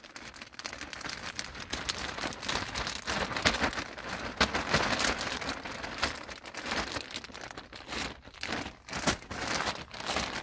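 Clear plastic zip-top bag crinkling and rustling as a knit beanie is pushed into it and the bag is handled. A continuous crackle, with a couple of brief lulls near the end.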